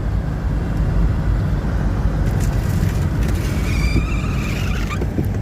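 Steady low rumble of a car driving slowly through deep snow, heard from inside the cabin: engine and tyres on snowy road with a constant hiss. A faint thin high whine comes in near the end.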